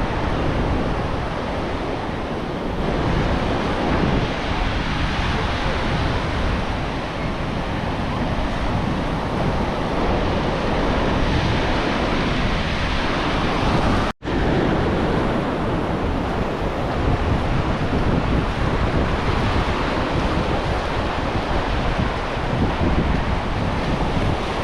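Ocean surf washing in steadily, with wind buffeting the microphone. The sound drops out for an instant about halfway through.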